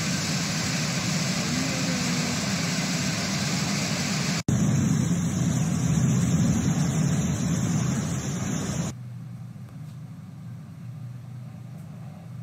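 Floodwater rushing through a flooded underground passage, a steady rush of noise. It cuts off sharply about four and a half seconds in and comes back louder, then about nine seconds in drops to a much quieter steady low hum.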